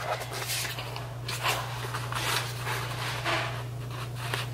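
A paper note card with a clear sheet stapled over it rustling softly now and then as it is handled, over a steady low hum.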